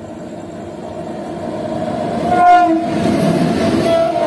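Horn of a WAP7 electric locomotive sounding continuously as it approaches at speed, growing louder and dropping in pitch as it passes about two and a half seconds in. The ICF coaches then rush past with a rumble and wheel clatter.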